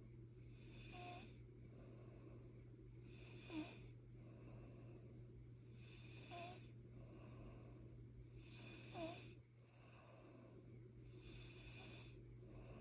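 Faint, slow snoring: five breaths evenly spaced about every two and a half to three seconds.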